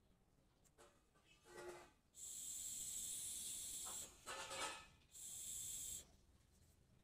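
Hissing rush of breath as a man blows by mouth into a black cylindrical truck air-brake part, the air passing through it. Two blows: a long one of about two seconds starting two seconds in, and a shorter one about five seconds in.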